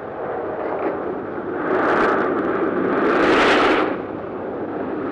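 Traffic noise of a fast car drive through busy streets: car engines running and cars rushing past, with two louder swells about two and three and a half seconds in.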